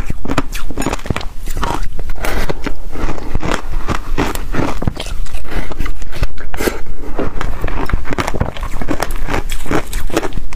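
Close-miked biting and chewing of a frosty block of ice soaked in passion fruit juice: dense, rapid crunching throughout.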